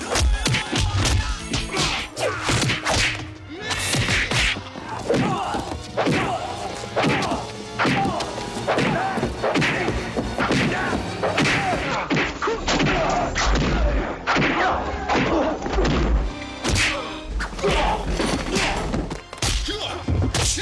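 Film fight-scene sound effects: a rapid run of punch and kick impacts, thuds and whacks, many in quick succession.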